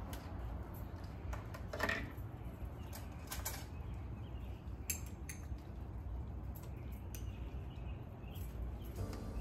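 Metal teaspoon clinking against a jar as garlic paste is scooped out: a scattering of light irregular clicks over a low steady rumble.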